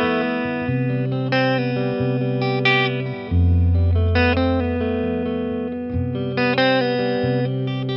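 Solo Eastman T185MX semi-hollow electric guitar plucked through a Boss Nextone amp: low bass notes held under ringing chords and short melodic fills, changing about every second.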